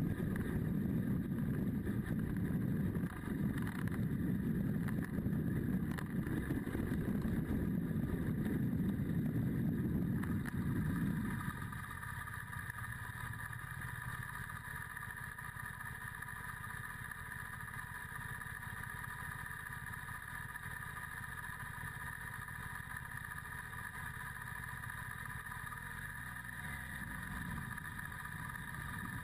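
Adventure motorcycle riding over a gravel road with loud wind and road rumble. About eleven seconds in, the rumble drops away as the bike stops, and it sits idling with a steady engine hum.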